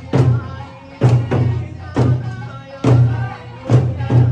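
Eisa drumming: large Okinawan taiko drums struck hard about once a second, some strokes in quick pairs, over a lively Okinawan folk tune with sanshin and singing.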